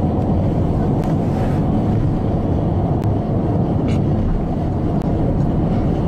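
Steady road and engine noise inside a moving car's cabin, a constant low hum with no change in level.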